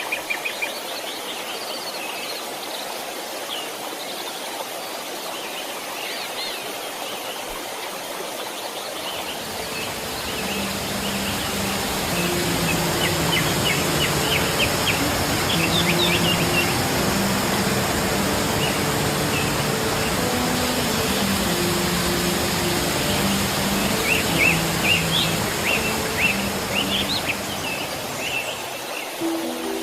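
Steady rush of a waterfall with birds chirping over it. About ten seconds in, soft background music with slow, held low notes fades in underneath and grows louder.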